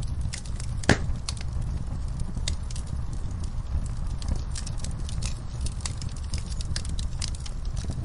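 Wood fire burning in a fireplace, crackling with many sharp pops over a low steady rumble, and one loud pop about a second in.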